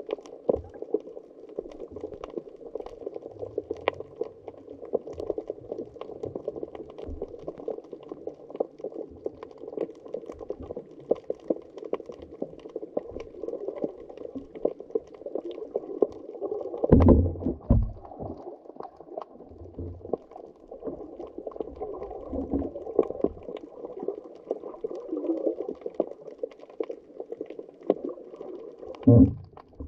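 Muffled underwater sound of the sea heard through a camera's waterproof housing: a steady dull wash of water noise with scattered faint clicks and crackles. Louder low rumbling surges come twice, a little past halfway and near the end.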